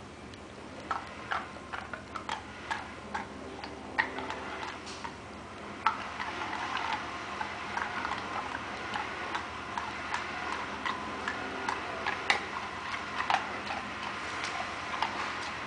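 Dog chewing something crumbly with an open mouth: irregular wet clicks and smacks, a few a second, getting busier about six seconds in.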